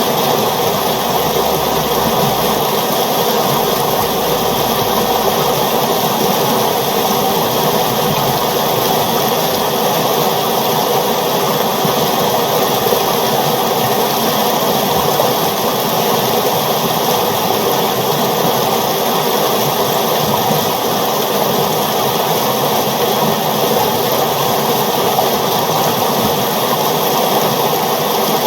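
River water flowing steadily, an even, unbroken noise.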